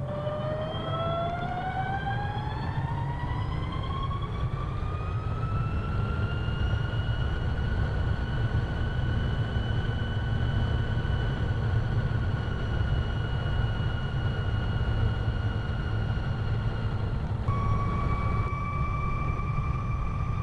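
Vectrix VX-1 electric maxi-scooter's drive whining: the whine dips, then rises smoothly in pitch for several seconds as the scooter accelerates and holds steady at cruising speed, a sound the owner puts down to its straight-cut reduction gear. A low steady rumble of wind and road noise lies underneath, and about 17 seconds in the whine changes abruptly to a lower steady pitch.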